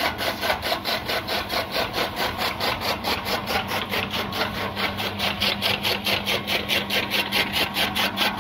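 Electric chaff cutter chopping green fodder stalks: an even, steady chopping rhythm of about four cuts a second over a steady motor hum.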